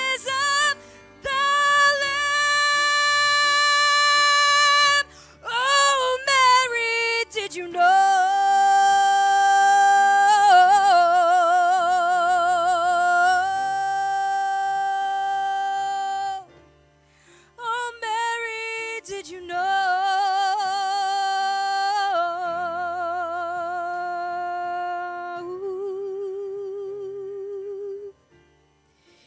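A woman singing long, wordless held notes with wide vibrato over soft accompaniment, in several phrases with short breaks between them.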